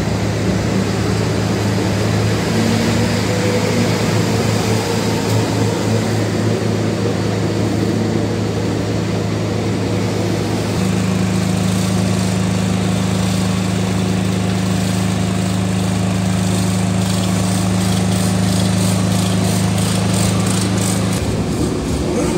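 Hong Kong double-decker electric tram running along its tracks, heard from on board: a steady low hum of the traction motors with wheel and track noise. The hum shifts to a higher tone about halfway and drops out near the end.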